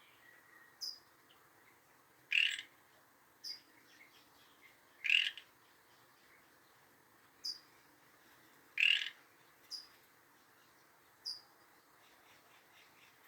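Backyard birds calling: three louder, rough calls a few seconds apart, with short, high, falling chips between them.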